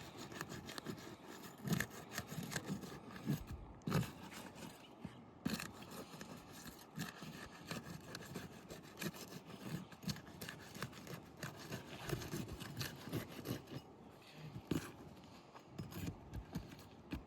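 Asphalt roof shingle seals being broken loose: irregular scraping and crackling with scattered sharp knocks, a few of them louder.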